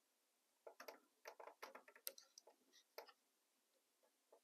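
Faint, irregular small metal clicks of needle-nose pliers working code 80 rail joiners onto the ends of model railway rail, a quick run of ticks from under a second in to about three seconds in.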